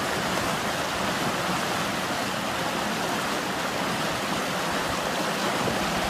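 Fast-flowing river water rushing steadily around a bamboo fish fence.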